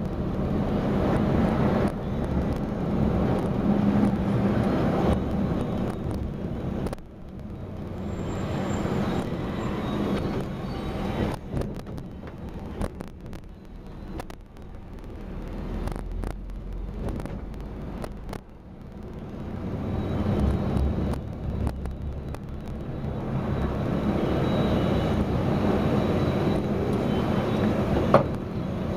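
Vehicle driving through town streets, with engine and road noise as a steady rumble. It is louder at the start and end and quieter through the middle, where scattered clicks are heard.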